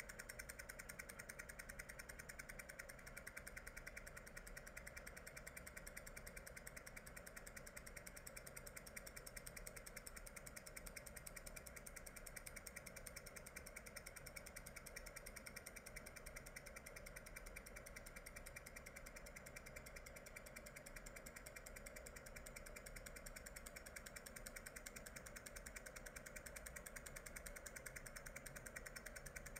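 A faint, steady hum with a fast, even pulse that holds unchanged throughout.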